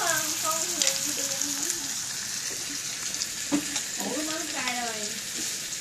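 Squid and enoki mushrooms frying in a wok: a steady sizzle, with a few short ticks from stirring.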